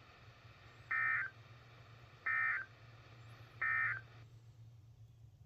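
Three short buzzy data bursts about 1.3 seconds apart from a NOAA Weather Radio receiver: the SAME end-of-message tones that close the Required Weekly Test. They sit over a low steady hum and faint radio hiss, and the hiss drops out about four seconds in.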